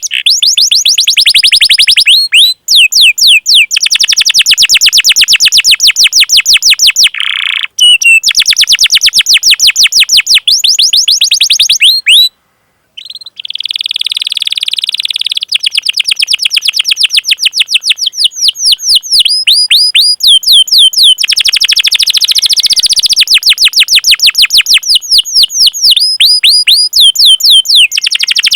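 Domestic canary singing long, rolling runs of rapid repeated chirps, about ten notes a second, with short breaks about 8 and 12 seconds in.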